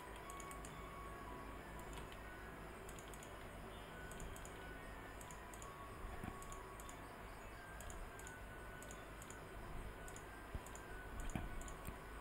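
Faint, irregular clicking of a computer mouse and keyboard as vertices are placed and shortcut keys pressed in 3D modelling software.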